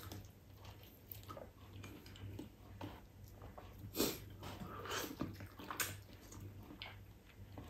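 Faint wet mouth sounds of a person biting, sucking and chewing soft ripe mango flesh off the skin, with scattered small smacks and a couple of louder wet slurps about four and six seconds in.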